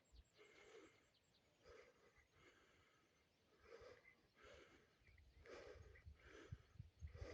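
Near silence: faint outdoor ambience at dawn, with soft, scattered distant sounds.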